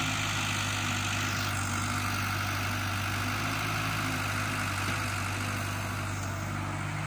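Caterpillar excavator's diesel engine running steadily while the operator works the controls.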